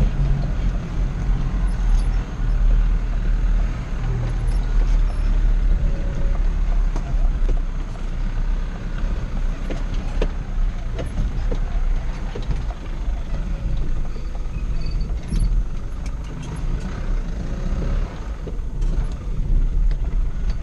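Mazda T4000 tipper truck's engine running steadily, heard from inside the cab as the truck drives slowly over a rough dirt track, with scattered knocks and rattles from the cab and body.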